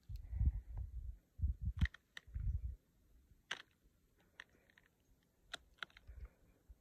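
Irregular low rumbling buffets of wind on the phone's microphone in the first few seconds, then quieter, with a handful of short sharp clicks scattered throughout.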